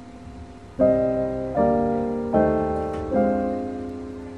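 Background piano music: four chords struck about 0.8 seconds apart, each fading before the next, the last one ringing out.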